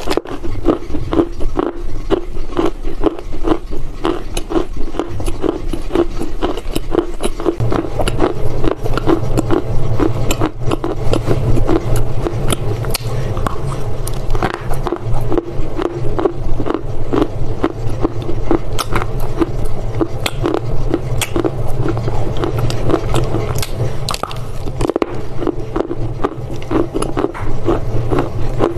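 A woman bites and chews a chunk of Chinese loess clay: rapid, dry crunches and gritty scraping, one after another. A low steady hum comes in about seven seconds in.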